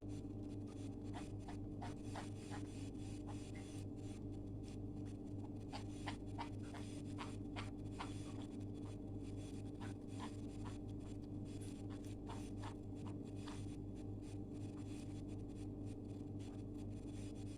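Many faint, irregular scratching and clicking noises over a steady low hum.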